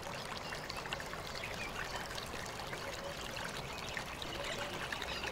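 Steady trickle of running water in a narrow rock gorge, dotted with many small drips and splashes.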